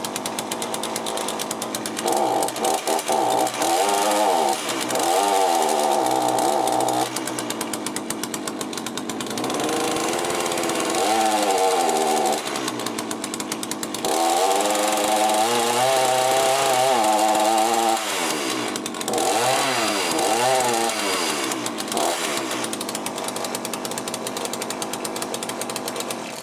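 Two-stroke chainsaw engine with a Walbro carburettor running and being revved: the pitch climbs to a high scream and drops back several times, then settles back to a lower idle near the end. The owner judges it to be running lean.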